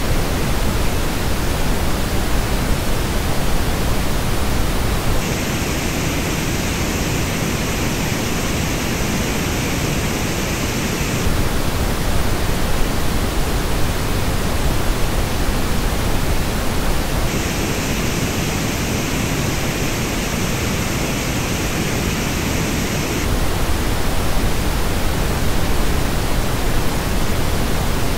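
Pink noise test signal: a steady, even rushing hiss. Twice, about five seconds in and again about seventeen seconds in, it turns brighter for about six seconds before going back to its even tone.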